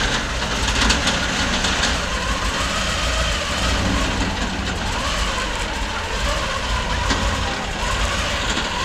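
Rolls-Royce Meteor V12 engine of The Beast idling, a steady low drone.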